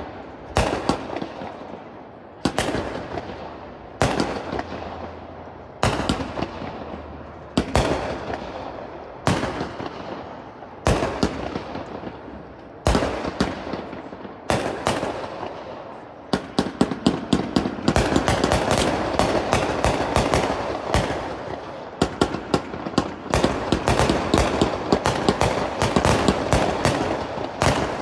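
A 1.4G consumer firework cake firing aerial shells. It starts with single bangs about every two seconds, each trailing off. About sixteen seconds in it speeds up into a rapid barrage of many bangs a second over a continuous crackling din.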